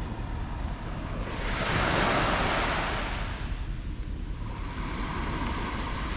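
A sea wave breaking and washing up the shore, swelling to its loudest about two seconds in and then fading, over a steady low rumble of wind on the microphone.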